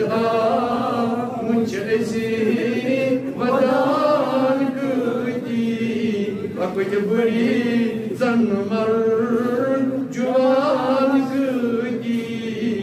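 A man chanting a munajaat, an Urdu-Persian supplication poem, in a melodic solo voice, holding long wavering notes in phrases of a few seconds each.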